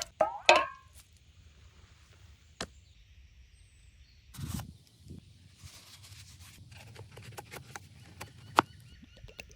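Hands working with objects: a loud, short scraping clang near the start, then scattered knocks and clicks, with a low thud in the middle and a sharp click near the end.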